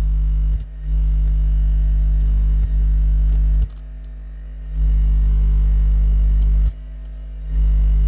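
Loud, buzzy 50 Hz hum from an audio amplifier driving a microwave transformer and its speakers. It cuts out three times: briefly about half a second in, for about a second in the middle, and again near the end, before coming back each time. This is the amplifier disconnecting its speakers as the wire is touched to the transformer.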